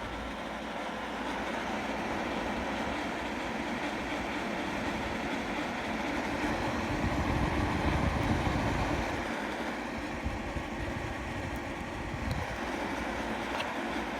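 Fans of a 360 mm closed-loop liquid CPU cooler running under test: a steady rush of air with a faint low hum, swelling a little toward the middle and easing off again.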